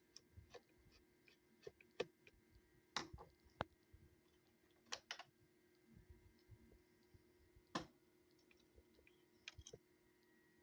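Irregular light clicks and taps from handling a multimeter and small tools on a bench, about a dozen in all, the sharpest about two seconds in and again near eight seconds, over a faint steady hum.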